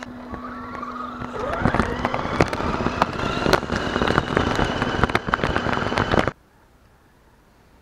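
Electric RC car motor whining, rising in pitch as it speeds up, over dense crackling and splashing of tyres churning through a muddy puddle, heard up close from a camera mounted on the car. Cuts off suddenly about six seconds in.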